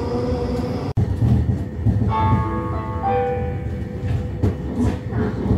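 Metronom regional train running, heard from inside as a steady low rumble. About two seconds in, an electronic chime of a few stepped notes sounds, the signal that an on-board announcement is about to follow.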